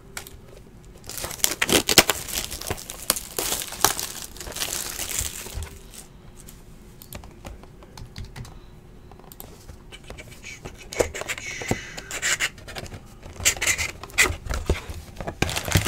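Wrapping and cardboard of a trading-card hobby box being torn and crinkled as the box is opened, in two spells of irregular crackling with quieter handling between.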